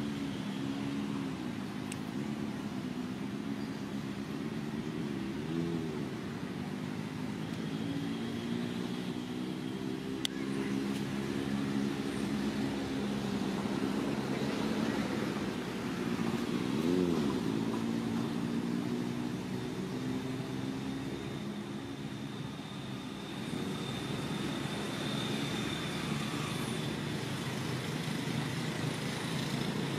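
An engine running steadily nearby, its pitch rising and falling a few times, most clearly about halfway through.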